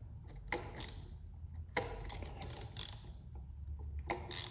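A series of light, irregular clicks and taps from handling an electrical outlet and its wiring with hand tools.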